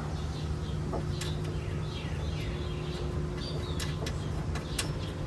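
Birds chirping repeatedly in short falling chirps over a steady low hum, with a few sharp clicks of hand tools on metal.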